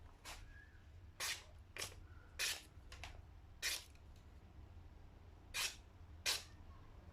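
A series of seven short, sharp scraping or swishing strokes, irregularly spaced, over a low steady hum.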